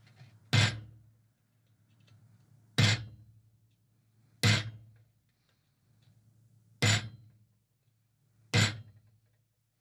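Hand hammer striking the end of a 4 mm steel round bar held in tongs as a punch against red-hot steel, driving a flat spot into the hot metal. Five single blows about two seconds apart, each a sharp strike with a short ring.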